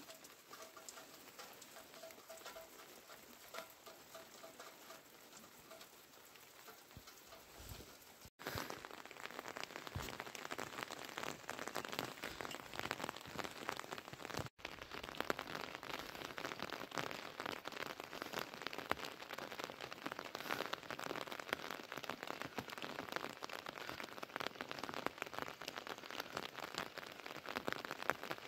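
Steady rain falling, a hiss of countless drops, becoming heavier and louder after about eight seconds. A faint repeated note sounds over it during the first several seconds.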